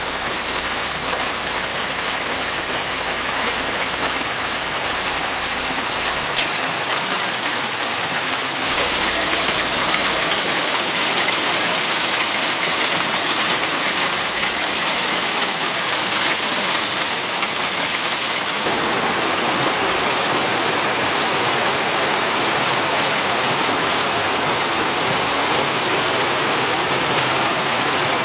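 Rain falling against a window pane: a steady, dense noise of drops that changes in tone twice, about nine and about nineteen seconds in, as one rain recording gives way to the next.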